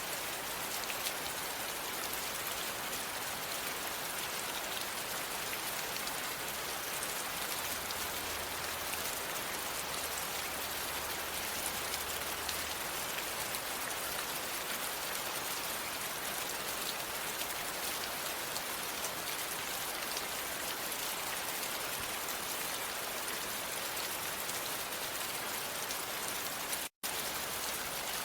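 Steady rain falling: an even, dense hiss of countless drops that cuts out for a split second near the end.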